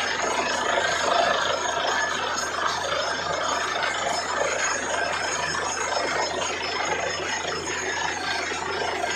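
Truck-mounted borewell drilling rig and its air compressor running steadily while drilling: a dense, even mechanical noise with a thin high whine over it.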